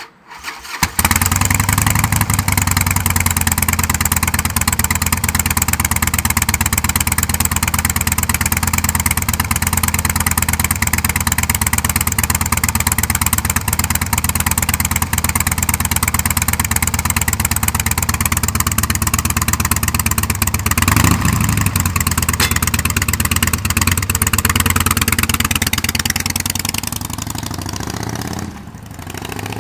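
2005 Harley-Davidson Softail's Twin Cam 88B V-twin starting up about a second in and idling steadily, with one short rev about two-thirds of the way through. Near the end the bike pulls away and its sound fades as it rides off.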